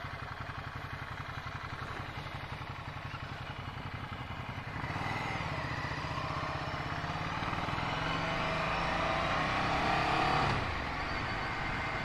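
Ducati Scrambler Sixty2's 399 cc air-cooled L-twin running with a regular pulsing beat, then pulling away about five seconds in, its pitch climbing as it accelerates before easing off near the end.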